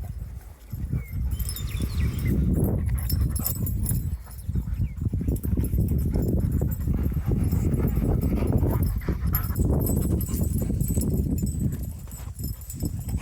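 Footsteps on a dirt trail and a Labrador retriever moving close by, over a steady low rumble on the microphone.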